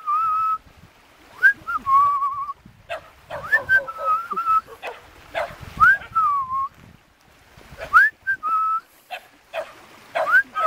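A dog whining: about six high, thin whines, each rising quickly and then held with a slight waver for under a second, every two to three seconds.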